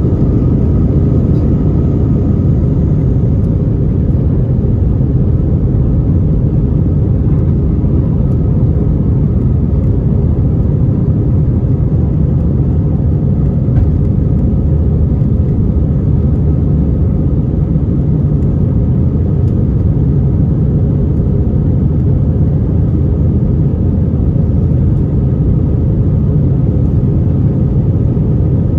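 Steady, deep rumble inside the economy cabin of an Airbus A320-232 in flight, from its IAE V2500 engines and the airflow over the fuselage, without breaks or changes.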